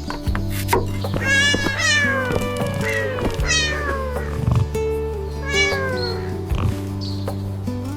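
A cat meowing three times, each meow falling in pitch, about a second in, at about three seconds and near six seconds, over steady background music.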